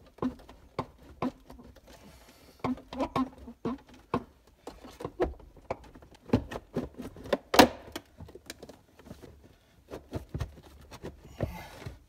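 Irregular knocks, clicks and creaks of a plastic car heater box being worked and pulled loose from a stripped dashboard, with one louder knock a little past halfway.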